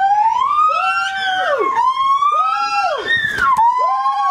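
Gibbon calling: long sliding whoops that rise and fall in pitch, overlapped by a string of short arched hoots.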